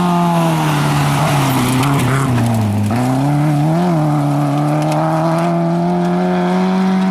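Peugeot 205 rally car's engine on a gravel stage. Its pitch falls as the car slows into a bend, then the throttle comes back on about three seconds in with a short rise and a gear change, and the engine holds high and fairly steady as the car pulls away.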